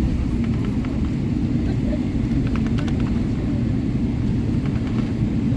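Steady low cabin rumble of a Boeing 777-300ER taxiing after landing, its GE90 engines at low thrust, with a few faint clicks and rattles around the middle.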